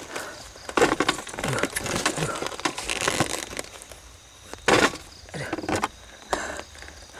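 Irregular crunching and cracking of dry leaves and twigs, with one loud snap about two-thirds of the way through.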